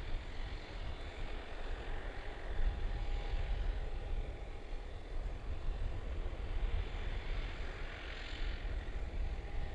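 Fixed-wing aircraft engine noise: a steady wash of sound over a deep, uneven low rumble, briefly growing brighter about eight seconds in.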